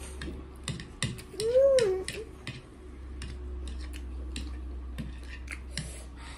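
Noodle-eating sounds: chewing, lip smacks and slurps with many short sharp clicks, and a brief rising-and-falling hummed "mmm" from a voice about one and a half seconds in, over a steady low hum.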